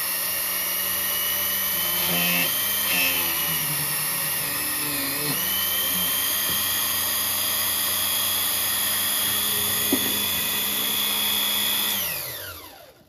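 Cameron micro drill press motor running at a steady whine while a number 45 drill bores a small hole in a brass hub; the pitch dips briefly a few times in the first several seconds as the bit cuts. Near the end the motor is switched off and winds down to a stop.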